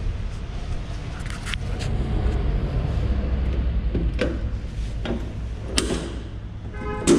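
Sheet-metal bonnet of a Massey Ferguson 245 DI tractor being unlatched by hand: scattered clicks and knocks from the side latch and panel, with a louder ringing metal clank just before the end, over a steady low rumble.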